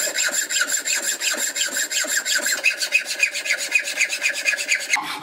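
Hacksaw cutting through a piece of elk antler, rapid, even back-and-forth rasping strokes.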